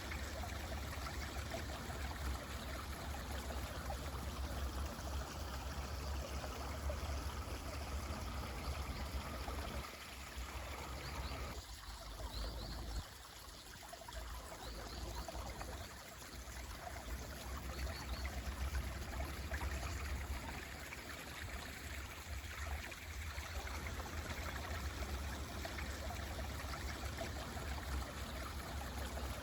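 Mountain stream running steadily, a continuous rushing and trickling of water that dips a little about halfway through. A few faint, brief bird chirps sound over it near the middle.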